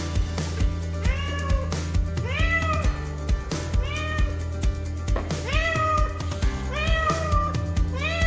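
An orange-and-white cat meowing in protest while being bathed, about six meows roughly a second and a half apart, each rising then falling in pitch. Background music with a steady beat plays underneath.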